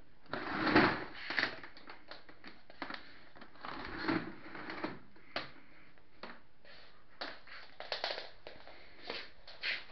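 Scattered handling noises: irregular rustles, clicks and light knocks, with a louder rustle about a second in and another around four seconds.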